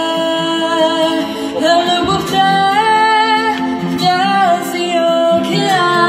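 A young female soloist singing into a stage microphone over instrumental accompaniment, holding long notes that slide between pitches.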